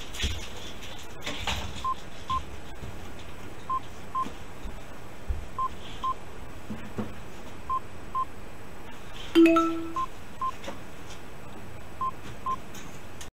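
Earthquake-monitor alert tones: short, high double beeps repeating about every two seconds. About nine seconds in, a single louder, lower chime sounds, signalling detected shaking.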